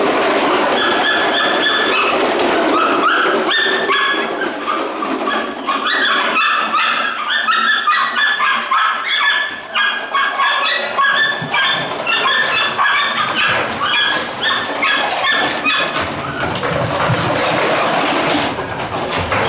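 A litter of 48-day-old Belgian Malinois puppies yipping and whining over one another in many short, high-pitched calls. The calls are thickest through the middle and thin out near the end.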